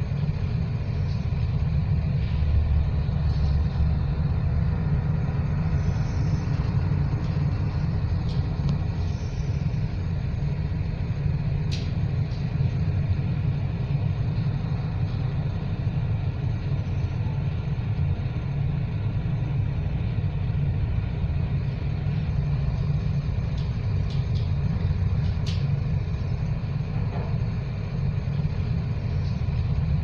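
Steady low rumble of a storm at sea heard aboard a ship: wind and heavy breaking waves, with a couple of brief sharp clicks, one near the middle and one later on.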